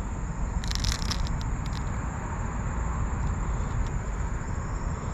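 Crickets chirring in a steady high tone over a loud low rumble, with a brief burst of crackling about a second in.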